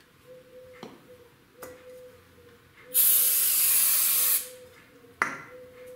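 Aerosol spray can sprayed in one steady hiss lasting about a second and a half. A sharp knock follows about a second later.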